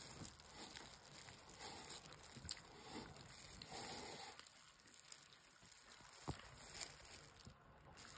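Near silence, with a few faint clicks and a little rustling.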